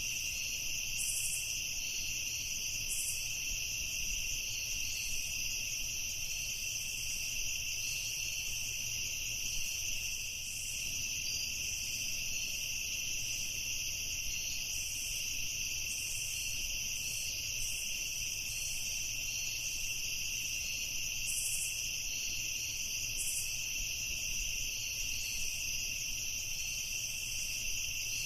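Night-time chorus of crickets trilling steadily at several overlapping high pitches, without pause.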